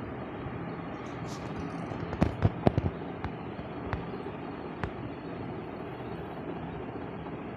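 Steady background rumble with a quick run of sharp pops about two seconds in, followed by a few single pops spaced about a second apart.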